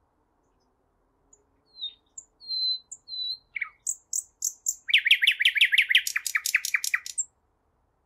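A nightingale singing one song phrase. It starts with a few separate whistled notes, then breaks into about two seconds of rapid, loud repeated notes, about eight a second, and ends abruptly.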